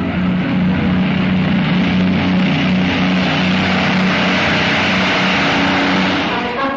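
Avro Lancaster bomber's four piston engines running loudly as it flies past close by: a steady drone with a pulsing hum and a hiss that swells in the middle and eases near the end.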